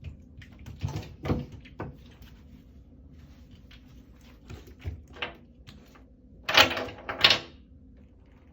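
Golden retriever puppy scrambling in a bathtub: a scatter of knocks and bumps against the tub, with two louder scuffling bursts close together near the end.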